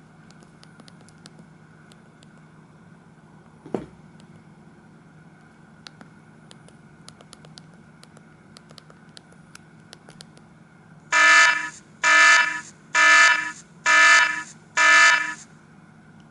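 Samsung SGH-E250i mobile phone playing one of its built-in tones through its small speaker: five identical electronic beeps, about one a second, in the last third. A single sharp click comes earlier.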